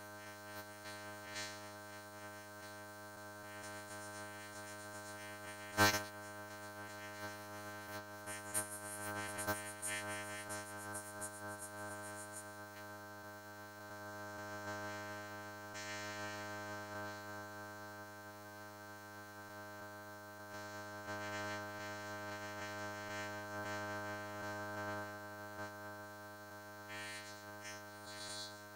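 Steady, buzzy drone of many stacked tones: logo music turned by a video-effect filter into a sustained hum. A sharp click about six seconds in.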